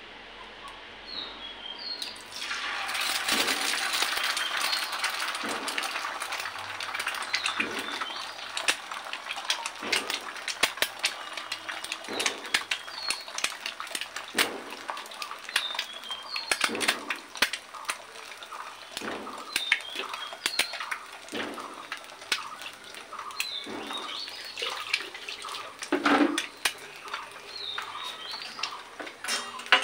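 Egg sizzling and crackling as it fries in hot ghee in a nonstick pan. The sizzle starts about two seconds in when the egg hits the fat, is loudest for the first few seconds, then settles into a steadier crackle with scattered pops.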